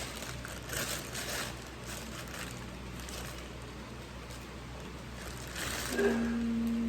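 Soft rustling handling noises over a steady low hum, as a small watering can and its packaging are handled. Near the end a woman holds a long hummed vowel for about a second.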